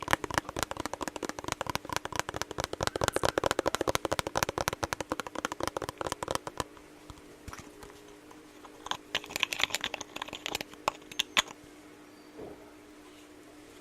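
Rapid, close-up fingertip tapping and patting: lotion being patted into the skin in ASMR style. The taps run densely for about six seconds, then thin out to scattered taps with a short flurry near the middle of the rest.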